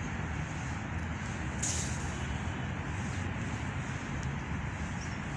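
Steady background hum of city traffic, a low rumble with a brief hiss about a second and a half in.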